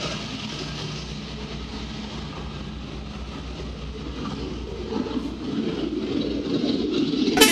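Heavy vehicle engine running with a low rumble that gets louder over the last few seconds as it comes closer. A horn blast starts right at the end.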